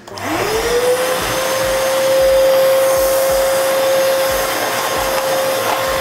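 Arnica Vira water-filter canister vacuum cleaner switched on: its motor whine rises over about the first second as it spins up, then runs at a steady pitch over a rush of air.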